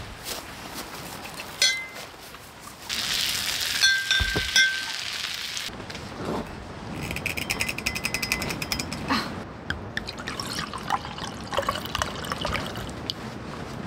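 Cooking and serving sounds: metal utensils clinking against cookware and dishes, a liquid being poured for a couple of seconds, and a fast run of clicks near the middle.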